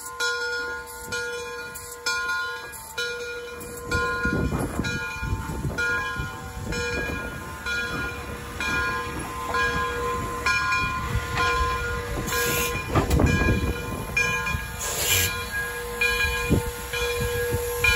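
Frisco 1630, a 2-10-0 Decapod steam locomotive, moving slowly past, with heavy exhaust chuffs starting about four seconds in and two loud bursts of steam hiss later on. A bell rings steadily in a regular rhythm throughout.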